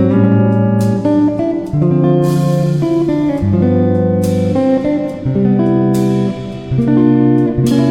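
Background music led by guitar, with strummed chords changing every second or two.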